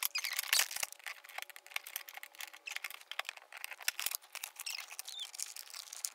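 Quick, irregular metal clicks and rattles of a small key and chrome clasp latch being worked on an aluminium-framed case, with a thin sound that has no low end.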